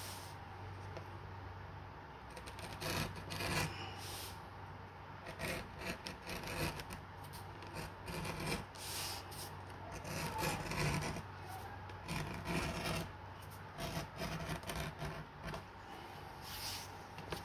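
Keen #3 edge beveler shaving the edge of a vegetable-tanned leather belt strap: a series of short scraping strokes, starting about three seconds in, as the blade cuts off a thin curl of leather.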